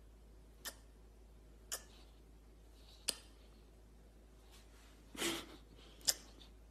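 A golden retriever puppy mouthing and nibbling at a person's face: faint, sharp wet clicks and smacks, five in all, spaced about a second apart, the fourth a little longer.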